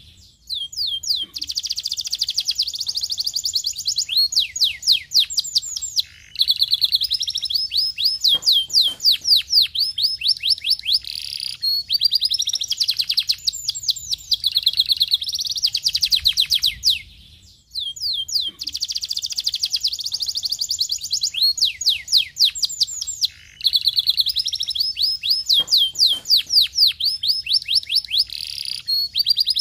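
Domestic canary singing in long phrases of fast rolling trills and rapid runs of high repeated notes, broken by short pauses about every five or six seconds.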